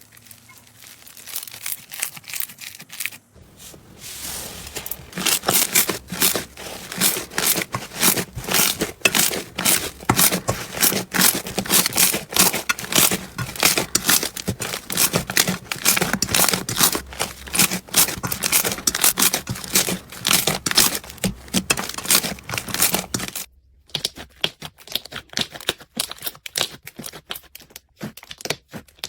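Slime being squeezed and pressed by hand, giving a dense run of rapid crackling and popping. About three-quarters of the way through it breaks off briefly and resumes as sparser, quieter crackles.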